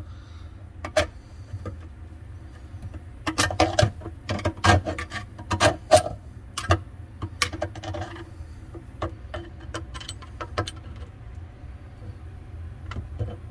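Irregular metallic clicks and knocks as the inside of a removed, jammed garbage disposal is worked over by hand while searching for the object stuck in it, with a busy flurry of them in the middle.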